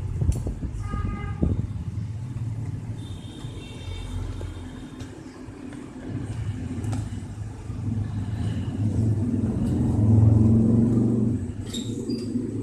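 Passing road traffic: a vehicle engine rumbling and swelling to a peak about ten seconds in, with a short horn toot about a second in.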